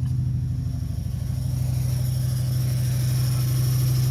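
2003 Dodge Neon's 2.0-litre four-cylinder idling rough through an SRT exhaust, a steady low drone with an uneven, lumpy pulse. The roughness is a misfire: two cylinders are not firing because of a faulty new ignition coil.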